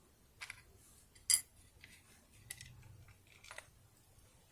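Small metal parts of a gutted disc detainer lock clicking and clinking as they are handled, about seven separate light clinks with one sharper clink about a second and a half in.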